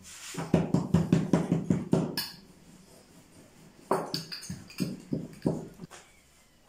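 Dough being patted flat by hand on a floured wooden board, a quick run of soft thumps, then a thin rolling pin knocking and rolling over the dough sheet.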